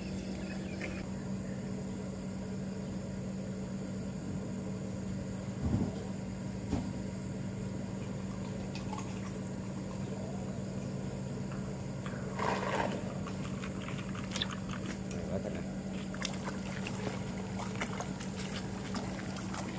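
A hooked tilapia splashing now and then at the surface while it is played on a pole, over a steady low hum.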